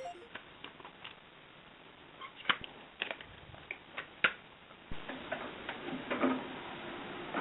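Scattered light clicks, taps and knocks of small objects being picked up and set down while tidying a room, with a few sharper taps in the middle and a short cluster of handling sounds near the end.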